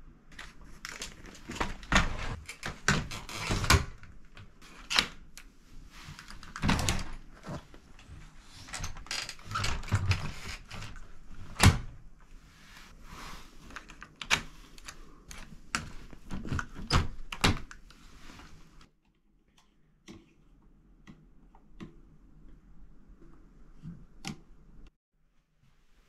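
Pleated accordion door of a capsule room being unlatched and folded open, its panels clattering with dense clicks and knocks. The clatter stops after about eighteen seconds, leaving a few light taps.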